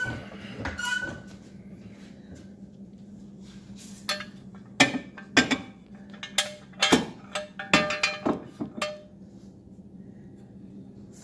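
A few squeaks near the start, typical of a floor jack being pumped to lift the car, then about eight sharp metallic clinks with a short ringing tone, spread over the middle of the clip, from metal tools or jack parts knocking together.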